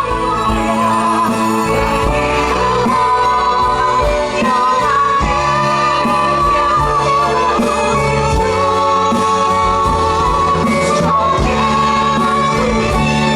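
Song playing: a long held, wavering vocal line over instrumental accompaniment with a steady beat.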